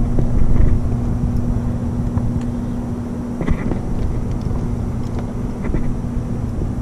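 Bow-mounted electric trolling motor running with a steady, even hum, pushing the boat along after a hooked fish. A couple of faint light clicks come about halfway through and again near the end.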